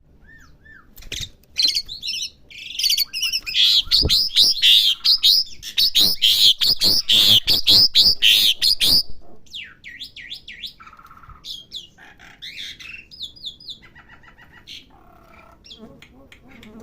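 Asian pied starling (jalak suren) singing as it learns its song: a loud run of harsh, rapid chattering notes for several seconds, then quieter, varied whistles and chirps.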